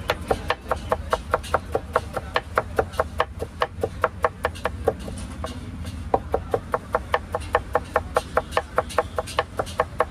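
Rapid, even chopping with a knife on a wooden board, about five strokes a second, as ingredients for the chaat are chopped.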